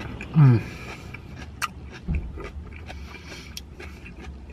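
A man eating: a short, loud 'mmm' that falls in pitch about half a second in, then chewing with scattered small clicks.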